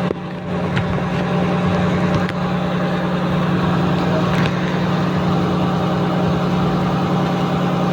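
Small fishing boat's engine running steadily with an even hum.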